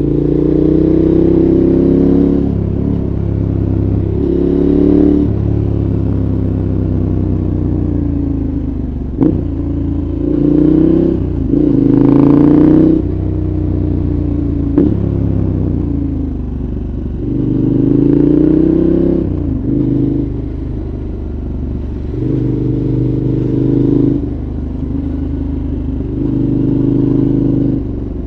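KTM 1190 Adventure's V-twin engine through a Giannelli aftermarket exhaust, heard from the rider's seat: it repeatedly accelerates with rising pitch, then falls back on the overrun, several times over, with a few sharp clicks along the way.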